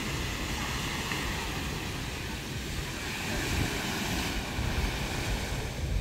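Small waves breaking and washing up on a sandy shore, a little louder about halfway through, with wind rumbling on the microphone.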